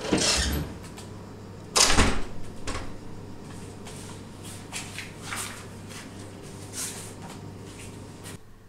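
An interior door with a lever handle being pulled shut, latching with a loud thud about two seconds in, followed by a few fainter knocks.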